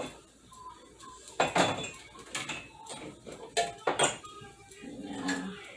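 Glassware and dishes knocking and clinking as they are moved about while someone hunts through a kitchen cupboard for a glass: about half a dozen separate knocks and clinks, the sharpest about a second and a half and four seconds in.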